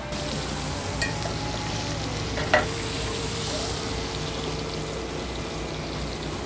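Strip steak searing in butter in a cast-iron skillet, sizzling steadily. Two short clicks break through, a light one about a second in and a louder one about two and a half seconds in.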